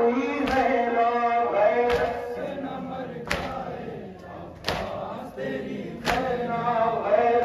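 Men chanting a Muharram mourning lament (noha) in unison, with synchronized chest-beating (matam): a sharp slap of many hands together about every second and a half.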